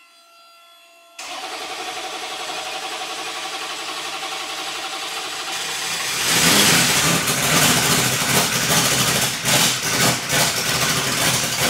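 C8 Corvette drift car's engine on its first start: the starter cranks steadily from about a second in, then the engine catches about six seconds in and runs unevenly on its new, untuned engine management.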